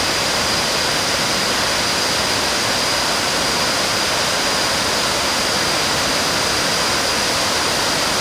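The Tad Sae tiered limestone waterfall, water cascading with a loud, steady rush, and a thin steady high-pitched tone running through it.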